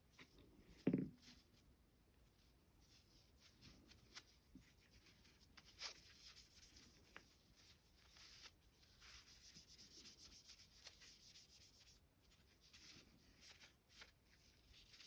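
Faint rubbing and handling noise of a cloth wiping a pistol's recoil spring and parts, with light scattered clicks and a soft knock about a second in.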